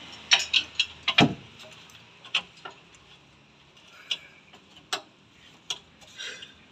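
Hand tools knocking and clicking on metal in irregular sharp strikes, about ten in all, the heaviest a dull knock about a second in.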